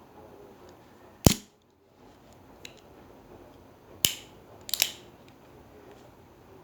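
Sharp metallic clicks from an Irwin Vise-Grip 5WR locking-pliers multitool being handled: one loud click about a second in, another about four seconds in, then a quick double click.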